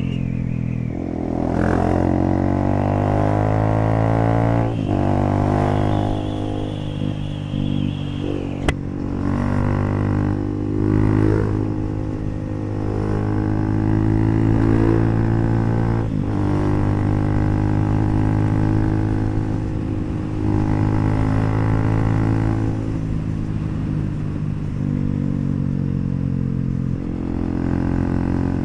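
Bajaj Pulsar NS400Z's single-cylinder engine through an HP Corse aftermarket exhaust, riding under way. Its pitch climbs and drops several times as the bike accelerates and shifts gears.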